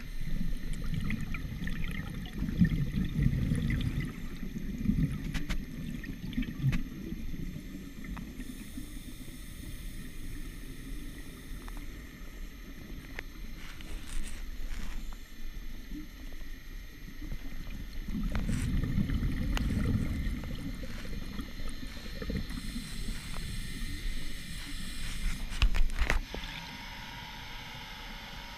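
Scuba diver's breathing heard underwater through a GoPro housing: exhaled bubbles rumble and gurgle in long stretches, at the start and again about two-thirds of the way through, with quieter gaps and a few sharp clicks between.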